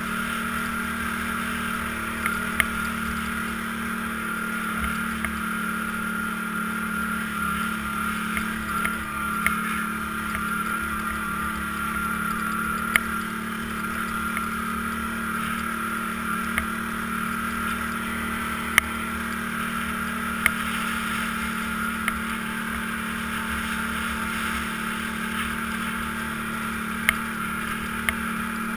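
ATV engine running at a steady cruising speed, a constant drone. Several short sharp clicks or knocks come at irregular moments.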